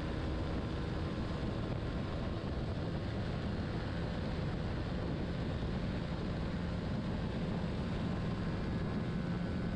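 Honda CBR125R's small single-cylinder engine running steadily near full throttle, with wind rushing over the onboard microphone.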